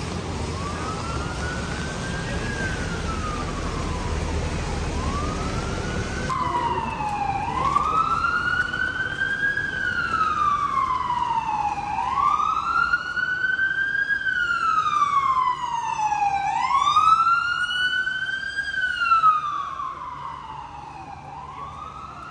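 Emergency vehicle siren on a wail, its pitch rising quickly and falling slowly about every four seconds. It grows louder about a quarter of the way in, is loudest near the end, then fades. A steady hiss sits under the first part.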